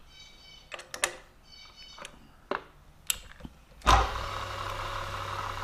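Metal clicks and two brief ringing tones as a half-inch jobber drill is fitted into the drilling machine's chuck. About four seconds in, the machine's spindle motor starts with a loud jolt and runs on with a steady hum, set at 210 RPM for drilling steel.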